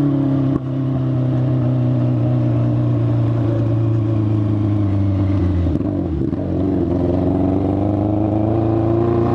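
Yamaha FZ6 motorcycle's inline-four engine running under way. Its pitch sinks slowly, dips briefly about six seconds in, then climbs again. It carries what the rider calls an ugly, strange noise whose cause he does not know.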